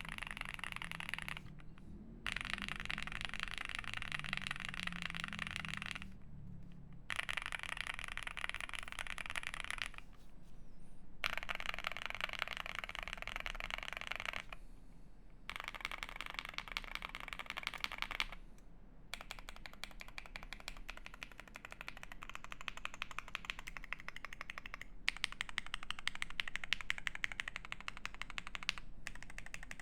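Typing on a Jelly Epoch 75% mechanical keyboard with lubed Alpaca linear switches, a polycarbonate plate and GMK Cafe keycaps: a fast run of key clacks in stretches of several seconds, broken by brief pauses.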